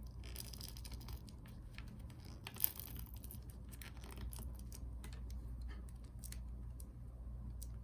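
Small tools and laptop parts being handled during a MacBook Pro teardown: light clicks, taps and scrapes, with one sharper click about two and a half seconds in, over a low steady hum.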